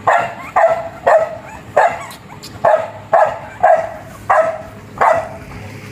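American Bully puppy, about twelve days old, crying in a string of short, high yelps, roughly two a second.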